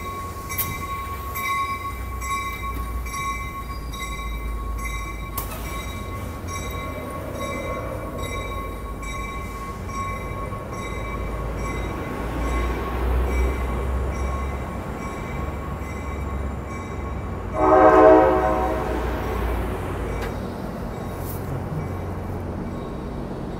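EMD F59PHI diesel locomotive running with a steady low rumble, joined by a few steady higher tones. About eighteen seconds in, its horn sounds one blast of about two seconds as the train readies to depart.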